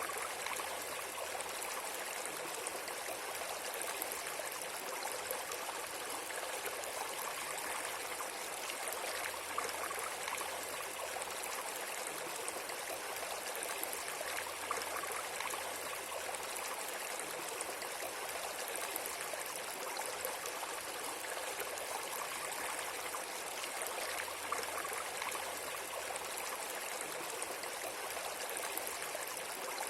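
Steady, even rushing of flowing water, like a stream, with no change or distinct events.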